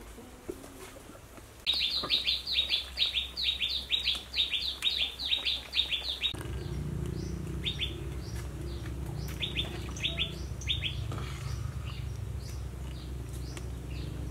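A small bird chirping in a rapid run of about twenty sharp, high notes, about four a second, then a few scattered chirps. A steady low rumble sets in suddenly about halfway through.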